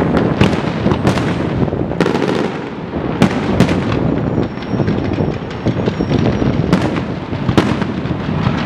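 Fireworks display: aerial shells bursting in an irregular run of sharp bangs, several a second, over a dense crackle with no let-up.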